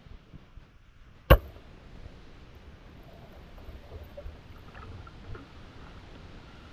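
Speargun firing underwater about a second in: one sharp, loud crack. Water sloshes and splashes afterwards as the diver surfaces.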